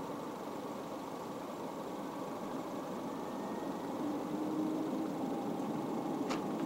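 Boeing 767 jet engines heard from a distance, a steady rushing noise that grows a little louder about four seconds in, with one sharp click near the end.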